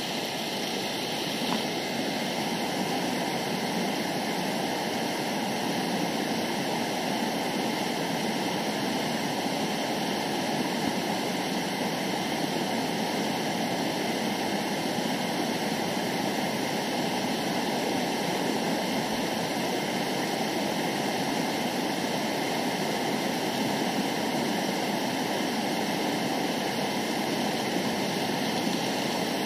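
Fast river water rushing over and between boulders in white-water riffles: a steady, unbroken rush.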